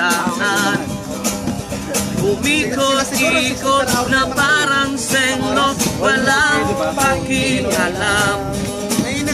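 Acoustic guitar strummed steadily, with voices singing along to it.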